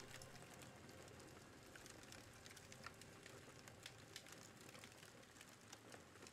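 Faint crackling of a wood campfire: scattered, irregular pops and snaps over a low hiss.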